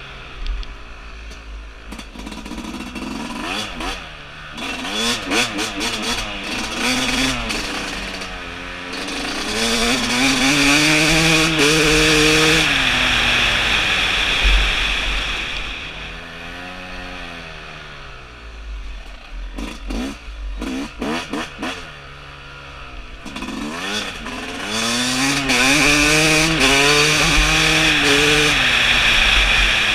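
A 2017 Yamaha YZ250's single-cylinder two-stroke engine, broken in, ridden hard through the gears: its pitch climbs and drops again and again as the throttle opens and shuts, over wind noise on the camera microphone.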